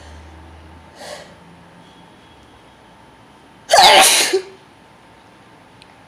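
A man sneezing once, loudly and explosively, about four seconds in, after a short breath about a second in.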